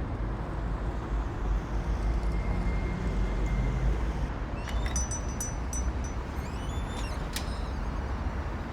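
Steady low rumble of vehicle noise, with a cluster of brief high chirps and clicks from about halfway in until near the end.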